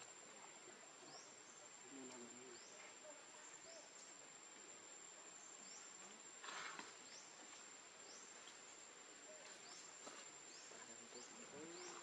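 Near silence: faint outdoor ambience with a steady high whine and short rising chirps about once a second. There is a brief rustle about six and a half seconds in.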